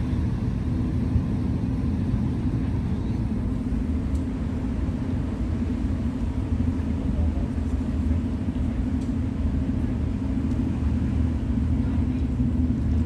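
Marine diesel engines running at idle in harbour: a steady low rumble with a constant hum in it.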